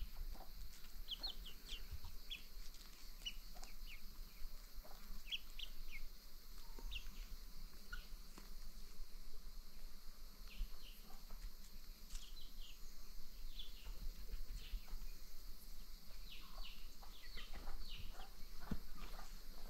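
Free-range chickens foraging: many short, high chirps and peeps, coming more often in the second half, with soft low thuds now and then.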